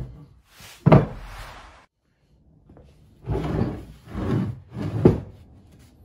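A heavy cast copper ingot thuds twice onto a wooden workbench, then three longer, rougher handling noises follow as it is moved about.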